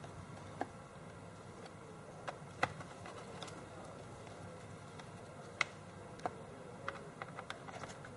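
Scattered light clicks and taps of a screwdriver and screws as the plastic bottom hatch of a laptop is screwed back on, with a quick run of small clicks near the end, over a low steady hum.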